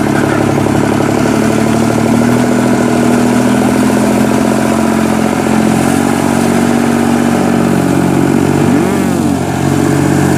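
Farm machine's engine running steadily at a constant speed, a dense, even chugging. About nine seconds in a brief tone rises and falls in pitch over it.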